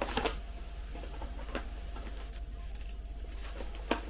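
A plastic porridge pouch being handled and cut with scissors: faint crinkles and light clicks, with a sharper click near the end as the scissor blades close on the packet.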